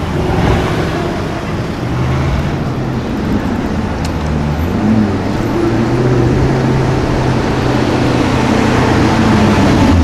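City street traffic, then a Maserati GranTurismo's V8 running steadily at low revs as the car rolls slowly through a turn and draws closer. The engine's low drone grows louder toward the end.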